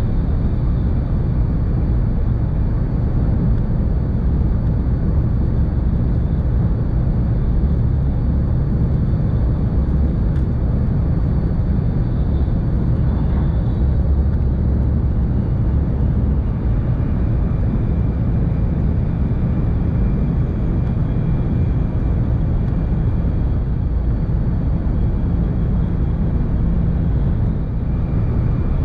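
Cabin noise of a Tohoku Shinkansen train running on the line: a steady low rumble with a faint high tone over it.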